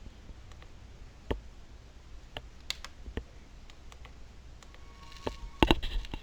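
Scattered clicks and taps of buttons being pressed on a Traktor S4 DJ controller, a handful spread over several seconds, the loudest pair near the end.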